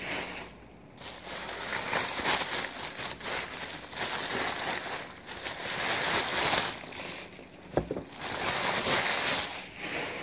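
Packing material crinkling and rustling in irregular bursts as a mailed parcel is unwrapped.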